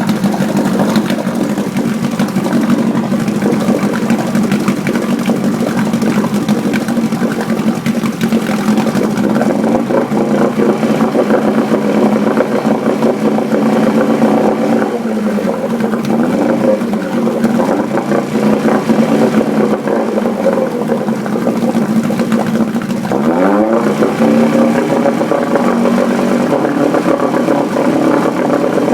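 Freshly rebuilt 1972 Johnson 9.5 hp two-stroke twin outboard motor running. It runs steadily at first, then its speed rises and falls several times through the middle. A little over three quarters of the way through it climbs quickly and holds at a higher steady speed.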